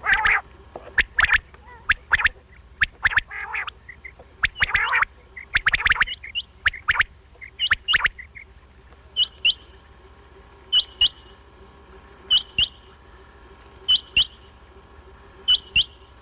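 Recorded quail calls played as a hunting lure. A tangle of harsh calls of varied length comes first; from about nine seconds in it settles into a short double note repeated about every one and a half seconds.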